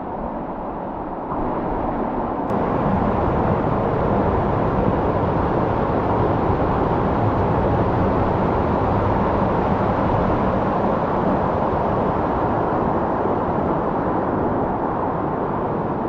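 Waterfall rushing: a steady, loud wash of falling water that grows louder about two seconds in.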